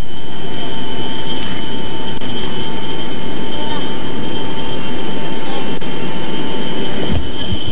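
Jet aircraft turbine running: a loud, steady rush with a high, steady whine over it.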